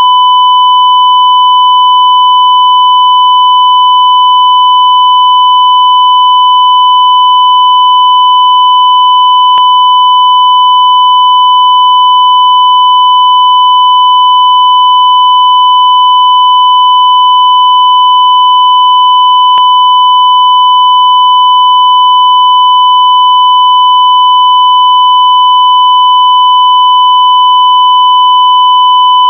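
Censorship bleep: one loud, steady, high-pitched tone held without a break, with faint clicks about every ten seconds.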